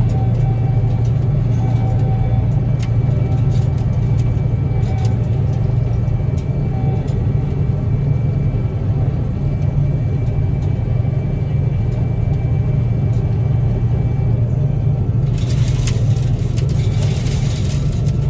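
Gleaner combine running steadily, a deep, even drone heard from inside the cab. A hiss joins about fifteen seconds in.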